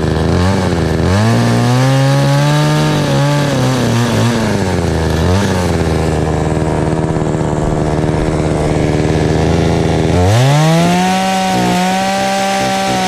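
Gas chainsaw idling and revving up twice as it cuts into wood: a first rev of about three seconds with its pitch wavering under load, a short blip, then a second rev held steady for nearly three seconds before dropping back to idle.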